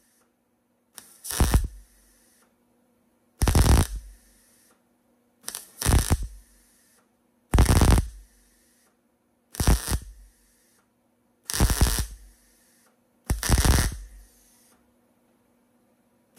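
Welder laying a string of short tack welds: seven bursts of about half a second each, roughly two seconds apart, as a spinning nut is welded back into the steel fender arch so it stays put.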